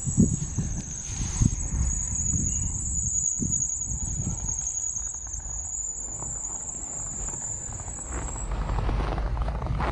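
Strong blizzard wind buffeting the microphone, with a thin, steady high-pitched whistle that stops about eight and a half seconds in.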